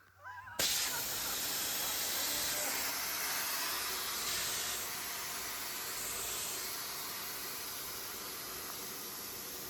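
A steady hiss, like gas or air escaping under pressure, starting just under a second in and holding fairly even, with slight swells partway through.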